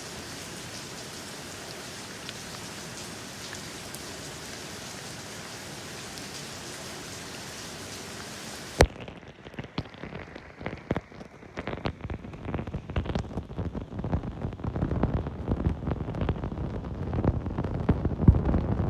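Steady rain hiss. About nine seconds in it cuts off abruptly with a click, and a duller, uneven low rumbling takes over and grows louder toward the end.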